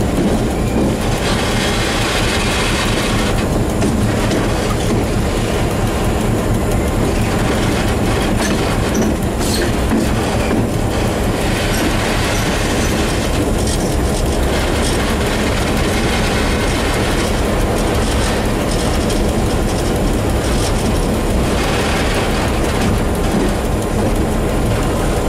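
Class 661 (EMD G16) diesel-electric locomotive running along the track, heard at the cab window: the steady drone of its two-stroke EMD diesel engine mixed with wheel-on-rail rumble. Stretches of louder, hissing wheel and rail noise come and go every few seconds.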